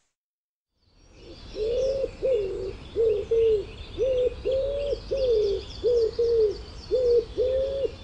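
Wood pigeon cooing: a run of low, repeated coo phrases, each of several notes with some drawn out longer, starting about a second in. Small birds chirp faintly in the background.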